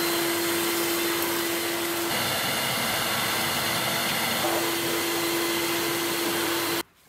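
Workshop vacuum cleaner running steadily while a floor nozzle is pushed across the floor: a loud rush of air with a steady hum in it. It stops abruptly near the end.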